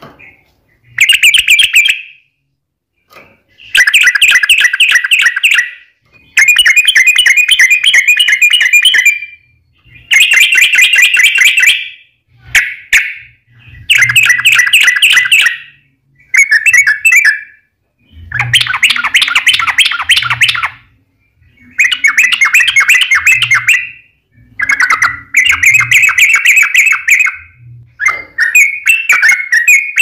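Yellow-vented bulbul (trucukan) singing loudly, its fighting song of long, rapid chattering phrases. About ten bursts of quick repeated notes, each one to three seconds long, with short pauses between them.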